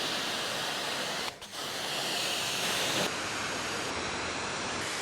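Pressure washer spraying a jet of water, a steady hiss that breaks off briefly about a second and a half in.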